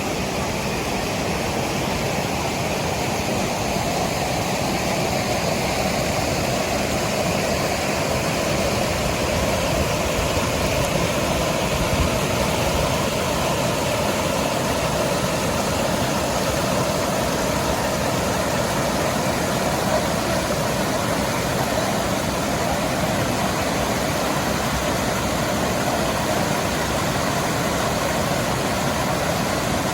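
Steady rushing of stream water pouring over the top of a waterfall.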